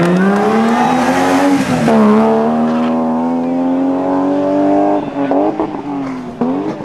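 BMW E30 rally car accelerating hard out of a hairpin. The engine revs up, drops in pitch at a gear change about two seconds in, and pulls up through the next gear. About five seconds in it turns quieter and uneven as the car moves off.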